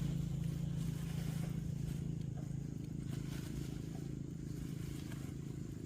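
An engine running steadily with a low drone, loudest at the start and slowly fading away.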